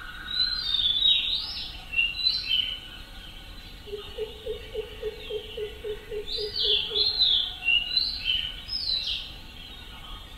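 Birds calling: repeated short, high, swooping notes, joined about four seconds in by a fast, even run of about ten low notes lasting some three seconds.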